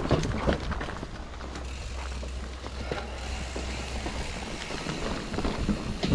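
Mountain bike riding over a bumpy dirt singletrack, picked up by a loosely mounted GoPro: a steady low rumble with frequent knocks and rattles from the shaking camera and bike.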